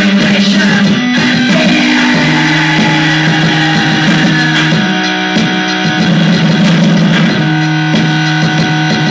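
Loud live electronic music with electric guitar: held low drone notes that step to a new pitch every second or two, under a dense layer of noisy, shimmering tones.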